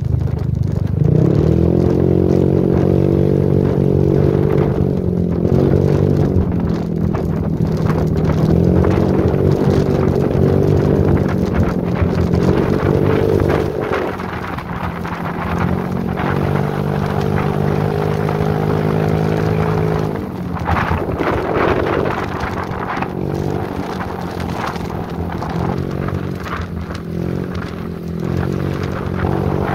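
Motorcycle engine running on the move, its note rising and falling as the throttle changes, with road and wind noise.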